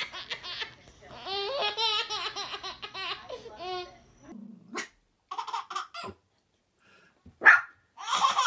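A baby laughing hard in quick repeated bursts, which stop about four seconds in. After short pauses come a few short, sharp yaps from a small dog, the loudest about seven and a half seconds in.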